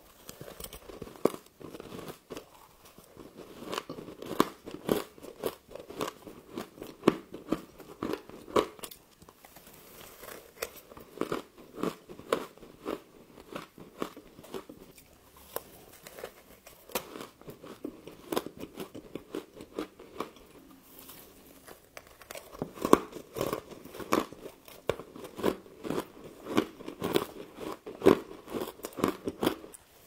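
Close-miked crunching and chewing of humidifier frost, bite after bite: dense, quick crisp crunches, with a few short lulls between mouthfuls.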